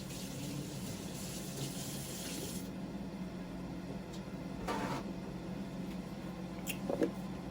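Carbonated soda being sipped from a can: a soft fizzy, liquid hiss for the first couple of seconds, then two short faint sounds later on.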